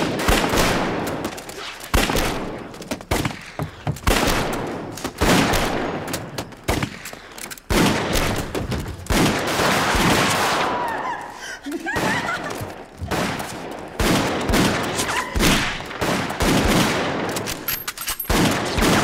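Heavy gunfire: many shots in quick succession, coming in dense volleys with echoing tails. A woman screams at times between the shots.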